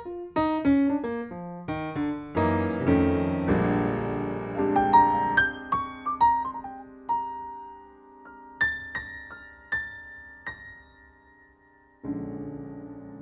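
Soundtrack piano music: quick runs of notes that slow to a few sparse, ringing notes, then a low sustained tone swells in near the end.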